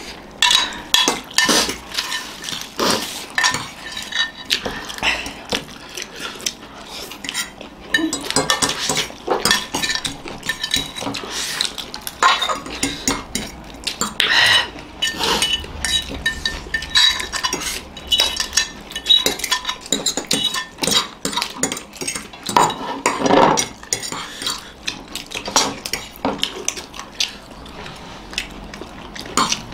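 Metal forks clinking and scraping against ceramic plates while noodles are eaten, in many quick, irregular clinks.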